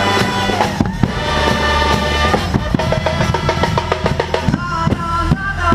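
Guggenmusik brass-and-percussion band playing loudly, its drum section hammering out a rapid drum break on snares, toms and bass drum. Held brass notes come back in near the end.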